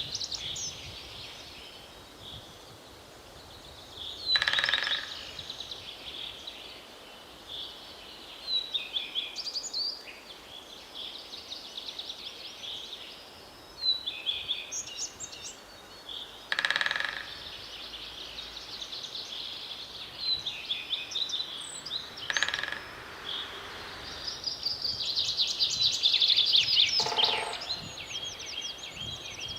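Forest songbirds singing almost without pause, broken by four short, rapid drumming rolls of a great spotted woodpecker hammering on wood, each under a second long. The drumming is the woodpecker's territorial and courtship signal.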